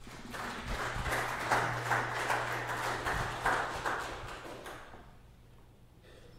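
Congregation applauding, building up just after the start and dying away about five seconds in.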